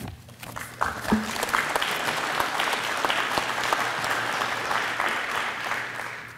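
Audience applauding: the clapping builds over the first second, holds steady, then fades out near the end.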